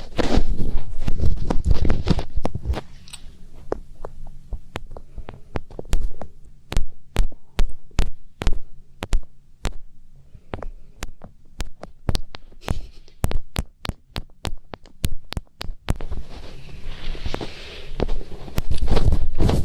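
ASMR finger ear-cleaning: fingertips rubbing and scratching close on a microphone's ears, giving a dense rustle, then a run of sharp separate taps and clicks, about two or three a second, through the middle, and rubbing again near the end.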